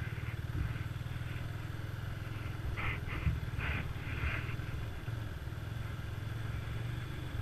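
Motorcycle engine running steadily at low speed while riding, with a few faint brief higher sounds near the middle.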